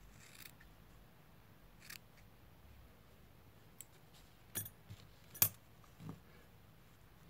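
Small scissors snipping through a doll's yarn hair, two short snips in the first two seconds. Then a few sharp clicks and soft knocks as the doll is handled, the loudest about five and a half seconds in.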